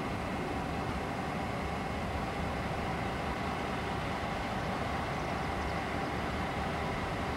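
A pair of EMD GP40 diesel locomotives passing close by, their engines running with a steady, even drone.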